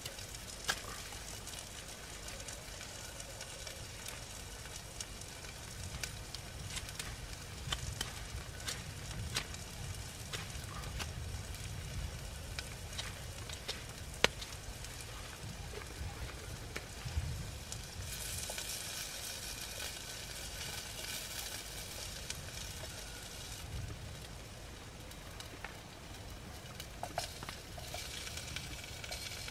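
Sausage and potatoes sizzling in a pot on a small twig-fed wood stove, with the fire crackling underneath in scattered sharp clicks. The sizzle grows brighter for several seconds past the middle, and near the end the lid comes off and the food is stirred.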